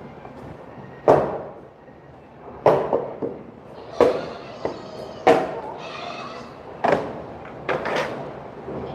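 A series of sharp knocks or thuds, six in all, about one every second and a half, each dying away quickly.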